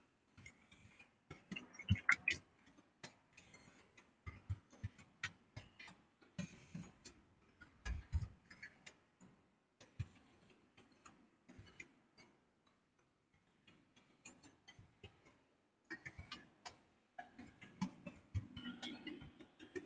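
Faint, irregular clicking and tapping, coming in clusters with short pauses between them.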